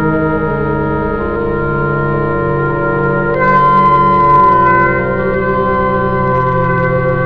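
Music: slow, sustained organ chords that change every second or so, swelling louder and brighter for a moment about three and a half seconds in.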